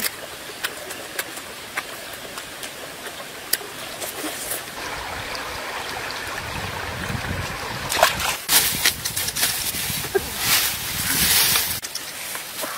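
A steady rushing like a small stream running, then, about two-thirds of the way in, crackling and rustling of dry leaves and bamboo litter being handled.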